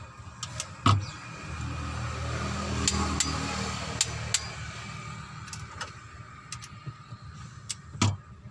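Click-type torque wrench clicking twice, about a second in and again near the end, as cylinder head bolts reach their set torque; lighter tool clicks fall between. A motor vehicle's engine hum swells and fades in the middle.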